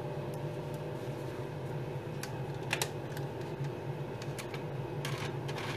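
Nail-table dust collector fan running with a steady low hum, with a few light clicks and taps scattered through it, the clearest a little past halfway and near the end.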